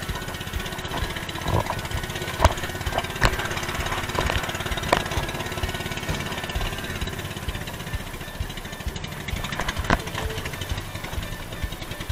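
Small engine of a motorized outrigger canoe running steadily under way, with water splashing along the hull and a few sharp knocks.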